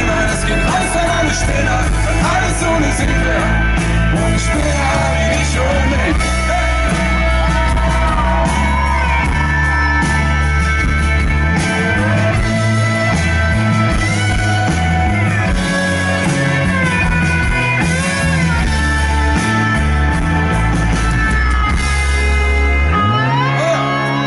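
Live pop-rock band playing, with acoustic and electric guitars over bass and drums, and lead lines that bend up and down in pitch. The low bass drops away near the end.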